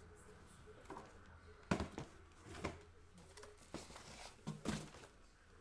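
Trading cards and packs being handled on a table: a scatter of short, sharp taps and clicks with faint rustling.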